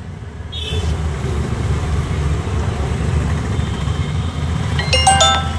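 Low, steady rumble of road traffic, a little louder from about a second in. Near the end, background music with bell-like chimes comes in.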